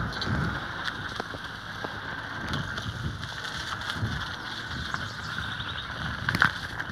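A mountain bike rolling along, with wind on the microphone and a steady rattle made of irregular small clicks, and one sharper knock about six and a half seconds in.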